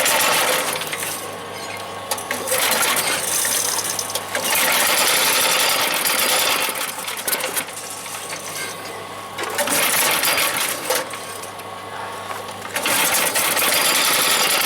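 Small engine of a 1983 Mighty Mac chipper shredder being cranked over on choke without catching. It runs in several rattling bursts of a second or two each, with short pauses between them. The engine won't fire because its carburetor has not yet filled with fuel.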